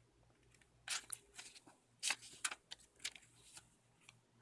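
Paper pages of a thin picture book being turned by hand: a few short, faint rustles.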